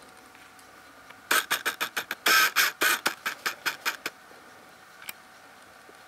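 Dog gnawing on a large dried chew bone: a quick run of sharp scraping crunches, about six a second, starting about a second in and stopping after about three seconds.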